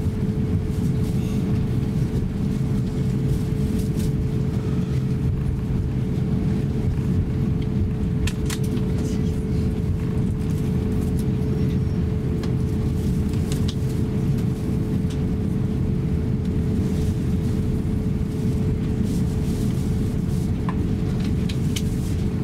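Steady low rumble inside the cabin of an Airbus A350-900 taxiing on a wet taxiway: its Rolls-Royce Trent XWB engines at taxi power and the gear rolling, with a constant hum. A few faint clicks sound now and then.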